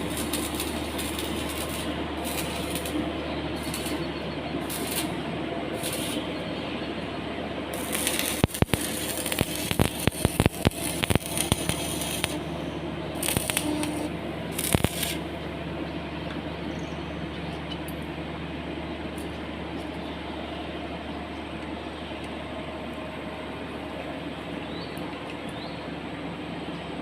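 A steady machine hum runs throughout. A quick run of sharp knocks comes about eight to twelve seconds in, and two more single knocks follow a few seconds later.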